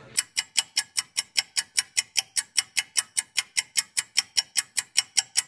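Clock-ticking sound effect: fast, even, high-pitched ticks, about five a second.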